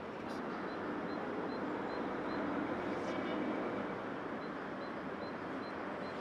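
Car-factory floor noise: a steady mechanical hiss and hum, with a short high electronic beep repeating about two and a half times a second. The beeping stops for about two seconds partway through, then starts again.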